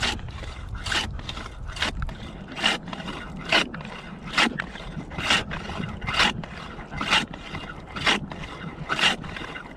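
Homemade hand ice saw cutting through ice almost a foot thick, in steady scraping strokes a little faster than one a second, the teeth biting well.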